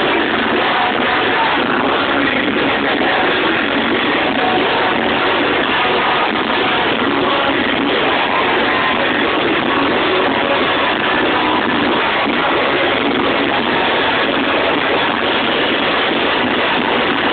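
Live rock band playing loud through a concert PA system, heard as a dense, steady wash of sound.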